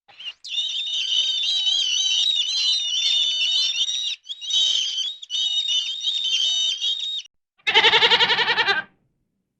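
A dense chorus of many birds chirping, high-pitched and continuous for about seven seconds. Then a single loud, quavering goat bleat lasting about a second near the end.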